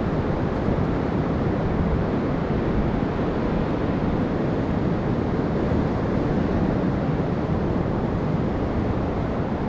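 Steady wind buffeting the microphone: a low, unbroken rushing rumble with no pauses or swells.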